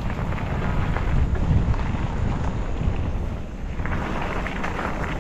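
Wind buffeting the microphone of a camera on a moving mountain bike, a steady low rumble, with crackly tyre noise from the dirt trail.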